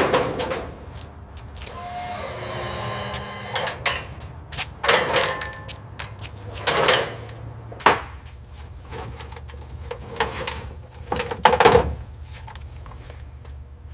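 Workshop sounds: a run of separate knocks and clunks over a steady low hum, with a short whirring motor sound about two seconds in.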